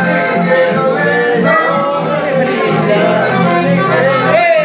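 Live folk music from a button accordion and two strummed acoustic guitars, with a man singing over them.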